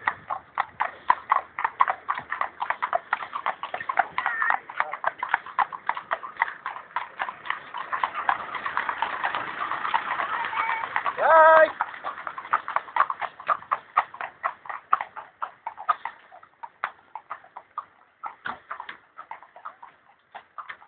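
Horses' hooves clip-clopping, a dense uneven run of hoofbeats that thins out and fades away over the last few seconds. A short call from a voice about eleven seconds in is the loudest moment.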